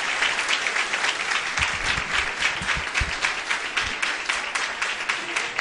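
Audience applauding at the end of a talk: steady, dense clapping from many hands.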